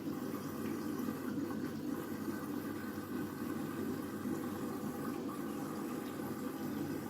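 Candy washing machine taking in water at the start of the main wash: a steady rush of water flowing into the machine.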